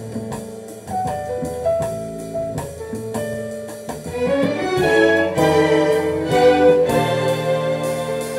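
A symphony orchestra's strings playing a jazz arrangement together with horns and a drum beat. The music grows louder about halfway through.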